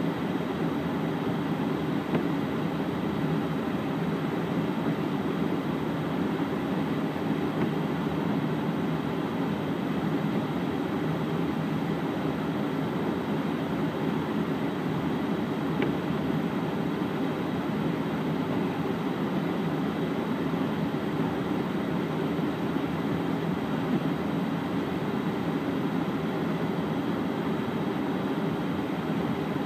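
Steady low engine drone heard from inside a vehicle cab, unchanging throughout.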